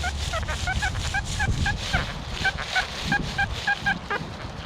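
XP Deus metal detector sounding a rapid string of short, evenly spaced beeps, about three or four a second, as the coil sweeps over a big iron target near the surface.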